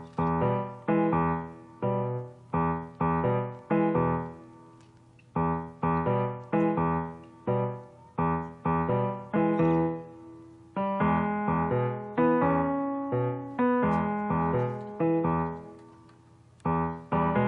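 Background piano music: struck notes and chords in a steady, lively rhythm, each note ringing and fading, with two brief pauses.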